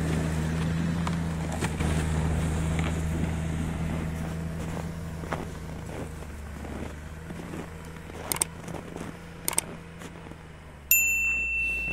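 Snowmobile engine running steadily, its hum growing fainter over several seconds as the machine drives off. A few light clicks come later, and a bright ringing tone starts suddenly about a second before the end.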